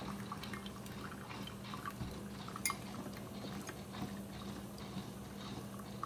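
Hamilton Beach FlexBrew single-serve coffee maker brewing a K-cup: a steady low pump hum with coffee trickling and dripping into a mug, and a few faint clicks.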